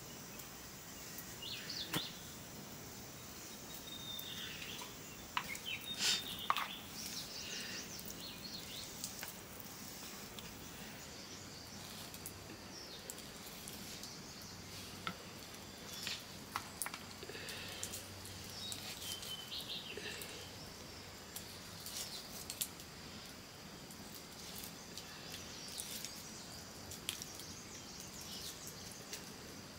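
Birds chirping intermittently over a steady outdoor background hiss, with a few sharp clicks in between.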